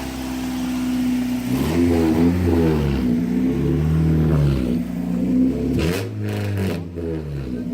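Mazda Miata four-cylinder engine idling, then revved up and down in repeated blips, its pitch rising and falling about once a second.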